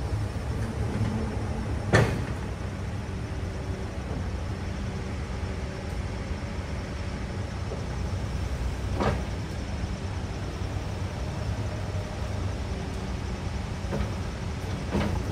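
Backhoe loader's diesel engine running with a steady low rumble. Sharp knocks break through it: a loud one about two seconds in, another about nine seconds in, and fainter ones near the end.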